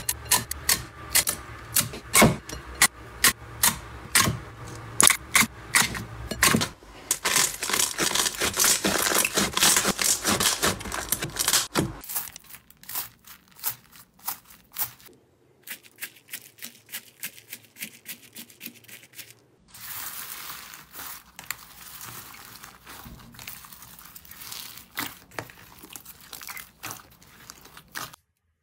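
Hands squishing and poking slime, making a run of sharp, wet clicks and pops about two or three a second. This is followed by several seconds of dense crackling, then quieter, sparser crackling and crunching of slime mixed with foam beads.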